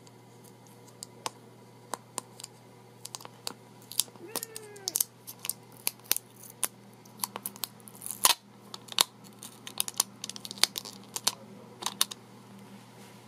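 Fingernails clicking and scratching on a plastic Make Up For Ever loose powder jar as they pick at and peel the protective film off the sifter: a string of sharp irregular clicks and crinkles, with a short squeak about four seconds in.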